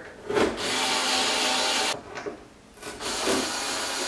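Cordless screw gun driving screws into a carbon fiber front splitter, the motor running with a rasping grind as each screw bites. It runs twice, with a break of about a second in the middle.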